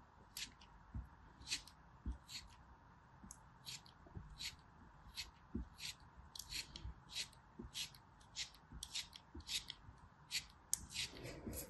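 Craft-knife blade slicing through a molded block of kinetic sand, giving a quick series of short crisp crunches, about two to three a second.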